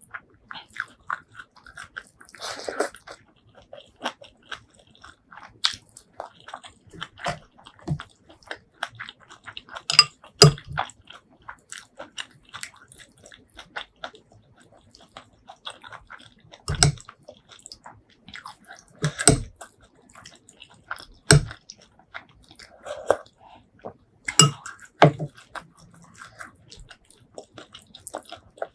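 Close-miked chewing and biting of shrimp curry and rice: a run of wet mouth clicks, with several louder, sharper bites scattered through.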